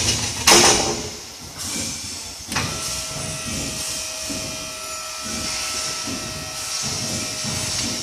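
Two sharp metal clanks from the self-loading pallet stacker's forks being handled, then its electric lift motor runs with a steady whine as the forks rise.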